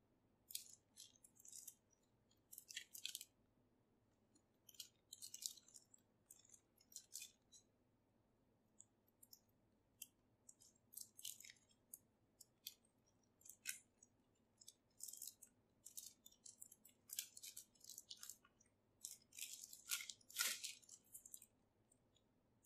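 Clear plastic shrink-wrap crinkling as it is handled and peeled off a cardboard box: quiet, crisp crackles in irregular clusters with short pauses, the strongest cluster near the end.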